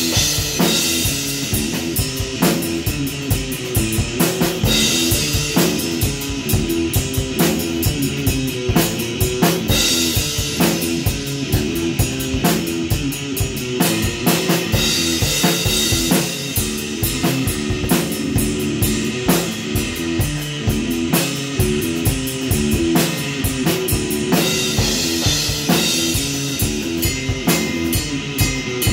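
Electric guitar playing a riff over a rock drum kit in a steady-tempo jam: kick and snare keep the beat, and crash cymbals ring out every few seconds.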